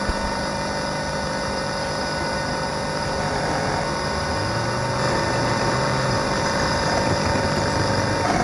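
Homemade log-built synthesizer putting out a steady, noisy electronic drone with several held tones; a low note comes in about four seconds in and drops out again about two and a half seconds later.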